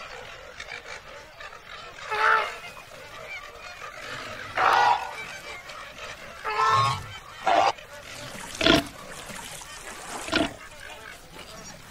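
Flamingos honking: a series of short, goose-like honking calls, about six of them spaced a second or two apart, over a faint steady hiss.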